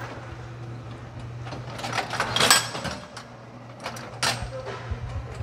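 Automatic manju-baking machine running: a steady low hum with scattered clicks and knocks of its moving parts, and one louder rasping noise about two and a half seconds in.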